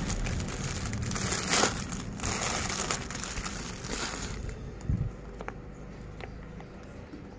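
Thin clear plastic packaging crinkling and crackling as a silicone mould is pulled out of its bag, for about the first four seconds, then dying down. A short soft thump about five seconds in.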